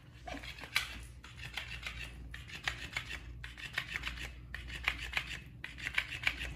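A motorized flopping fish cat toy flapping its tail against a hardwood floor. It makes rasping, scraping bursts about a second long, one after another with short pauses.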